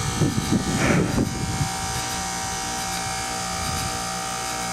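Goodman heat pump outdoor unit running in its defrost cycle: a steady electrical buzz and hum from the compressor. A short, irregular, louder noise comes in the first second and a half.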